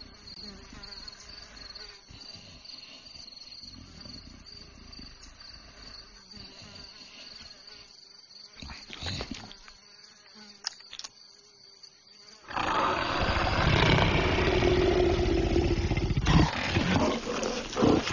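A faint steady insect-like drone, then about twelve seconds in a loud, rough animal roar that goes on for several seconds.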